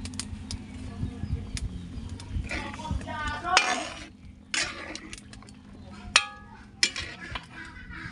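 Metal spatula clinking and scraping against a wok as chunks of pork are stirred, in irregular knocks; one sharper clink about six seconds in rings briefly.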